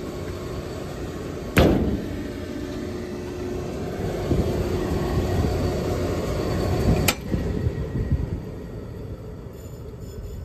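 York rooftop HVAC unit running with a steady rumble, broken by two sharp clacks, one about a second and a half in and another about seven seconds in. After the second clack the running noise gradually dies down.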